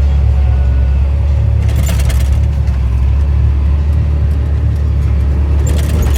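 Tractor engine running steadily, a loud low drone heard from inside the cab, with two short rattles about two seconds in and near the end.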